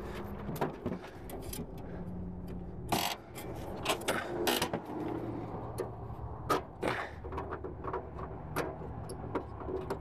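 A red plastic gas can and its spout being handled at a car's fuel filler: scattered clicks, knocks and short scrapes, the strongest about three, four and a half and seven seconds in. A low steady hum runs underneath.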